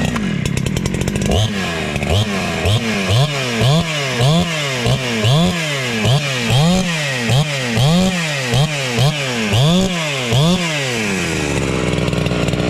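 Two-stroke chainsaw, just started, being revved in a string of about a dozen quick blips, each rising and falling in pitch. It then settles to a steady idle about a second before the end.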